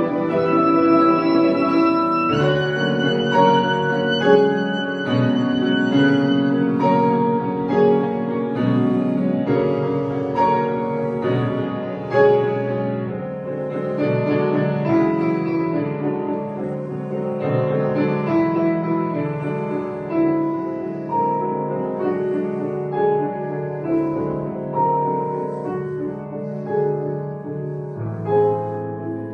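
Clarinet and grand piano playing a classical piece together, with long held notes over piano chords early on and the music slowly growing quieter toward the end.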